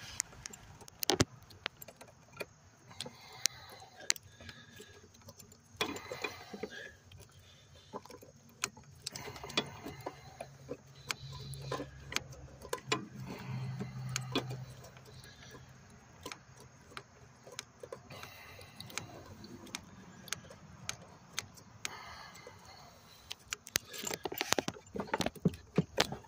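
Irregular metallic clicks and clinks of hand tools and parts being handled in a car's engine bay while a bolt on the intake is worked on, thickest near the end, with a faint low hum in the middle.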